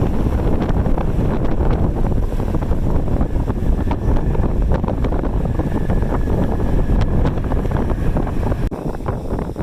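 Strong gusty wind buffeting the microphone in a heavy, continuous low rumble. A faint steady high whine sits under it through the middle and stops abruptly near the end.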